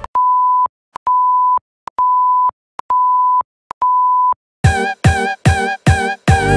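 Countdown leader: five identical steady electronic beeps, about half a second each and about one a second, all at one middle pitch. Then a quick run of struck musical notes, each fading fast, begins the intro music.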